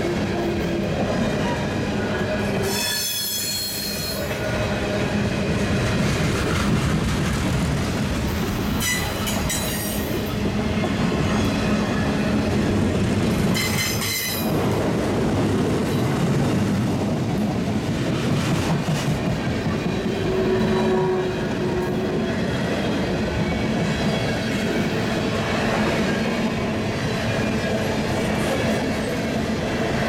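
Freight cars (covered hoppers, autoracks and tank cars) rolling past close by, their steel wheels clattering steadily on the rails. Brief high-pitched squeals come from the wheels three times: about 3 seconds in, around 9 seconds, and around 14 seconds.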